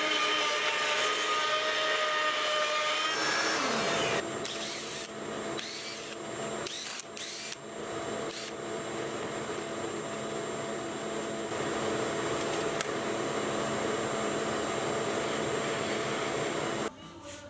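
Woodworking power tools running in a shop. A steady pitched whir with scraping gives way about three seconds in to a tone falling in pitch, then a steady whirring hiss with a few sharp knocks, which cuts off suddenly near the end.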